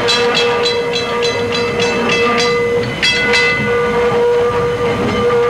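A bell clanging rapidly, about three strikes a second, for the first three and a half seconds as an electric trolley car pulls in, over a steady high hum.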